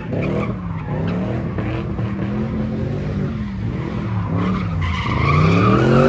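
Car engine revving hard, its pitch rising and falling again and again, with tyres squealing; loudest near the end.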